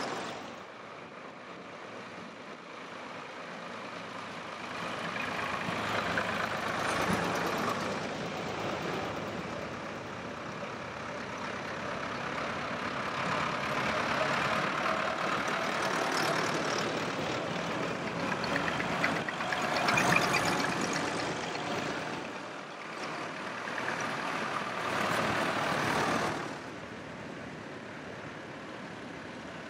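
A string of old farm tractors driving past one after another, each engine growing louder as the tractor approaches and fading as it goes by, about four times.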